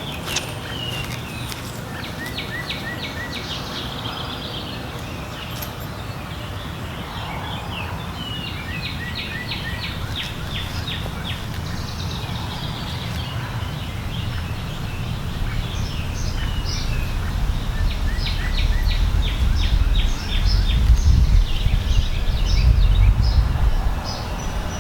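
Birds singing in repeated rapid trills of short chirps. A low rumble beneath them grows louder in the second half.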